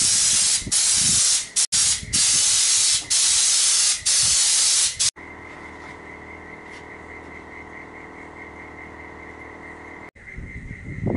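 Air-powered spray gun applying Raptor Liner bed-liner coating: a loud steady hiss broken by several short pauses as the trigger is let off. About halfway through it stops abruptly, giving way to a much quieter steady hum with a faint high pulsing trill.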